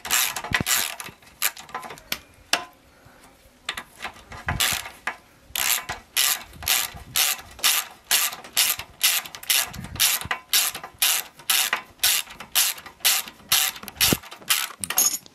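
Hand socket ratchet clicking in repeated back-strokes, about two a second, as it runs an 11/16 nut off a rod end held between rubber bushes. There is a short lull about two seconds in, then steady clicking again until the nut comes off.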